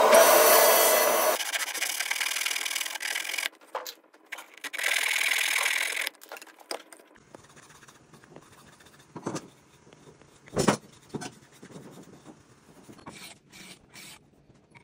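A sequence of wood-shop sounds: a table saw cutting a small pine block, loud for the first second and a half, then a second short burst of a tool working wood about five seconds in. The rest is quieter handling of hand tools and wood, with scattered clicks, one sharp knock around the middle, and light rubbing of wood on sandpaper near the end.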